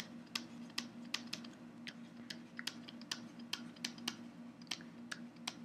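Faint, irregular light clicks of a stylus tapping on a pen tablet as words are handwritten, roughly three or four a second, over a faint steady hum.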